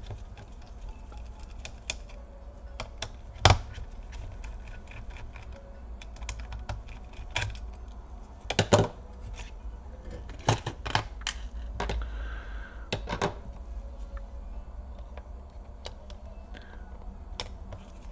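Irregular small plastic and metal clicks and taps as a laptop's Wi-Fi card and its antenna leads are unclipped and handled, over a low steady hum. A few sharper knocks stand out, the loudest about three and a half seconds in and again near nine seconds.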